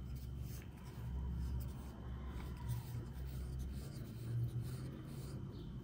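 Cotton thread rubbing and rustling in irregular soft strokes as it is wound around a wooden skewer to cover a crocheted flower's stem, over a low steady hum.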